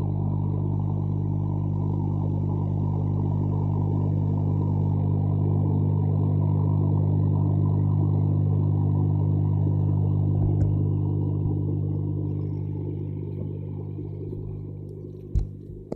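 A steady low mechanical hum with evenly spaced overtones that fades away over the last few seconds.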